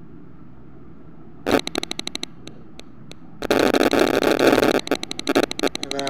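Handling noise: a burst of rapid clicking about a second and a half in, a few single clicks, then loud, dense rattling and rustling with rapid clicks from about halfway.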